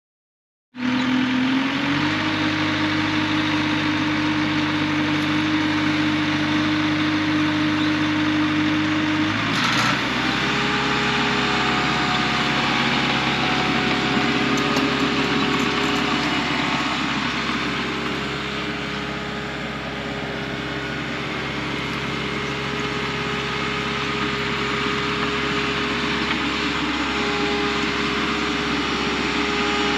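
Diesel engine of a heavy digging machine running steadily, cutting in abruptly about a second in. Its note steps up slightly just after, then shifts with a short click about ten seconds in and runs on evenly.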